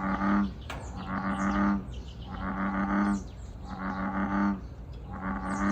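A deep animal call repeated five times, each just under a second long and about a second and a half apart, over many short high chirps of small birds.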